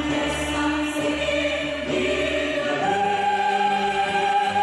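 A choir singing long held chords, moving up to a higher sustained chord about three seconds in: the closing notes of the song, just before applause.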